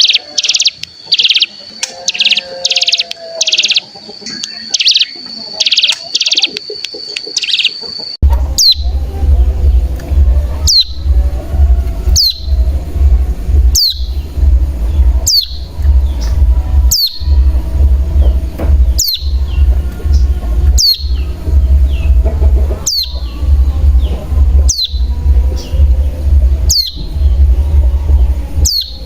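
Recorded ciblek gunung (cigun) calls used as a lure. The first part is a run of short, high, buzzy trill bursts. About eight seconds in it switches to a single sharp call that falls in pitch, repeated about once a second over a steady low rumble.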